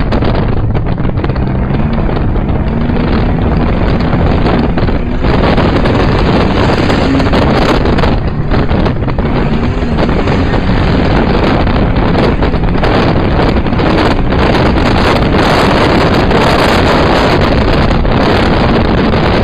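Speedway sedan engine running hard under race load, heard loud from inside the car, mixed with a heavy rush of wind. The engine pitch rises and falls in the first few seconds.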